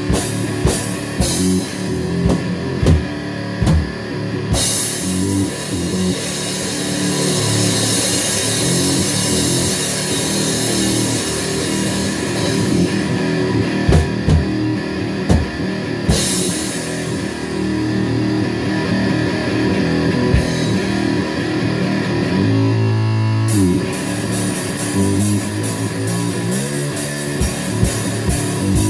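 Rock music with distorted electric guitar and a drum kit playing, cymbals crashing at intervals.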